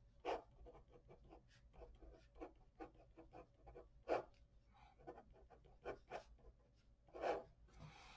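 Pen writing on paper: a series of faint, short scratching strokes at an uneven pace, with a few louder strokes among them.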